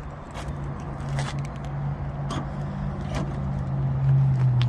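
Steady low hum of a vehicle engine idling, growing a little louder near the end, with a few light clicks and knocks.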